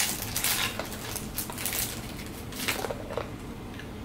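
Plastic wrapping crinkling and rustling in irregular bursts as it is pulled off a set of painted wooden shape pieces.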